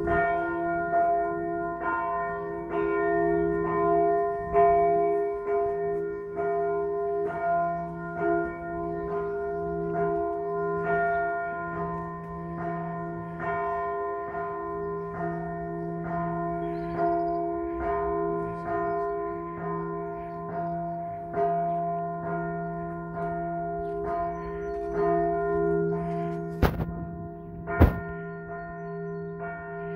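Church bells pealing: several bells struck over and over, about twice a second, their tones ringing on and overlapping. Two sharp knocks come near the end.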